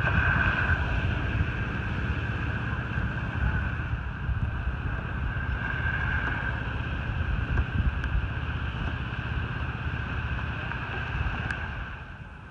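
Wind buffeting the microphone in a rough, uneven rumble, over a steady high-pitched drone; both drop away near the end.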